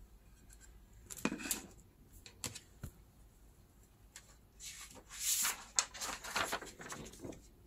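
Clear stamps and their plastic carrier sheet handled on the craft mat: a few light clicks and scrapes about a second in, then a longer stretch of plastic rustling and scraping in the second half.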